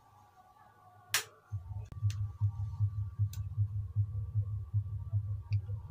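A sharp click, then a moment later a bare desktop motherboard powers on: the power supply and CPU cooler fan start up as a low, throbbing hum with a steady pulse.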